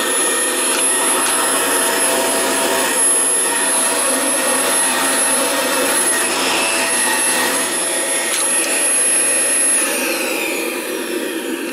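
Dyson DC24 upright vacuum cleaner running with a steady high whine. About ten seconds in it is switched off and the motor's whine falls away as it spins down.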